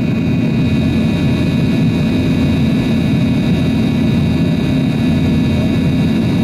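Yakovlev Yak-42D's Lotarev D-36 turbofan running steadily in flight, heard inside the cabin beside the rear-mounted engine: a steady high whine over a deep rumble.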